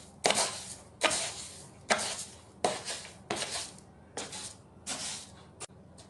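Plastic litter scoop raking and scraping through granular clumping cat litter in a plastic litter box, about eight quick strokes with a gritty rush at each stroke, heaping litter over a wet spot so it clumps.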